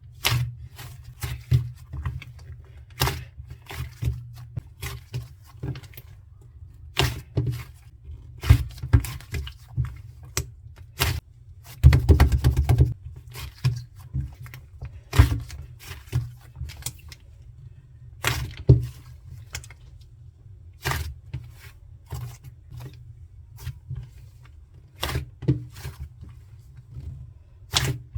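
Cement slime being squeezed and pressed by hand, giving irregular sharp clicks and crackling pops, with a denser crackle about twelve seconds in, over a steady low hum.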